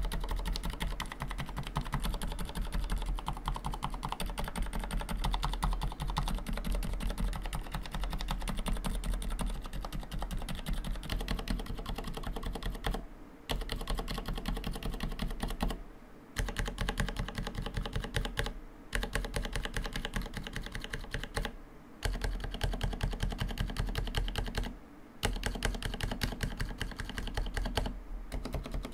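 Fast, continuous typing on a FILCO Majestouch Convertible 2 tenkeyless mechanical keyboard with Cherry MX Silent Red switches and laser-etched ABS keycaps: a dense stream of keystrokes, broken by brief pauses every three seconds or so in the second half. The case rings hollowly under typing, which the reviewer calls a case-resonance problem.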